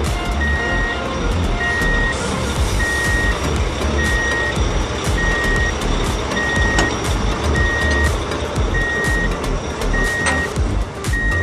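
Vehicle reversing alarm beeping steadily: one high tone about every 1.2 seconds, over a low rumble.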